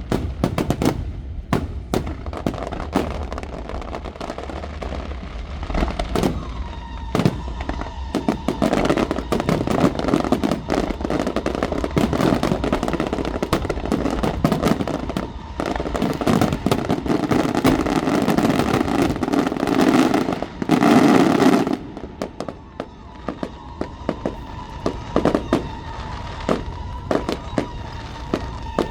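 Aerial fireworks going off in rapid, irregular bangs and crackles, thickening into a dense noisy rush that is loudest about two-thirds through. A steady high tone runs underneath from about a quarter of the way in.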